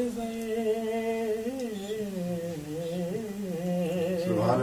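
A man's voice sings a long, slowly wavering held note of an unaccompanied Urdu naat, softer than the phrase before it. Near the end a louder sung phrase begins.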